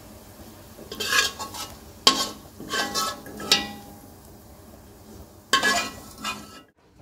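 Metal slotted spoon scraping and clinking against a metal karahi (wok) as fried pieces are scooped out, in about five separate ringing strokes.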